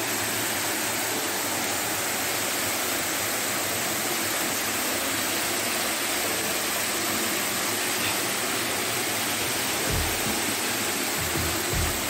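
Steady rushing of a nearby waterfall, with a few low thumps near the end.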